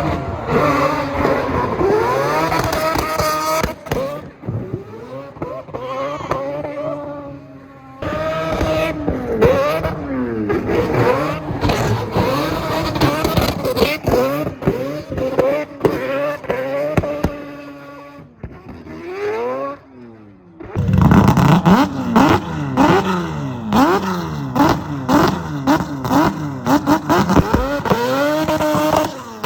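Drift car engines revving hard, rising and falling in pitch over and over as the cars slide. The sound breaks off abruptly and starts again several times.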